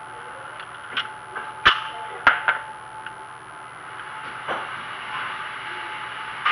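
Handgun shots on an indoor shooting range: a few sharp cracks, the two loudest about half a second apart roughly two seconds in, with fainter shots before and after them.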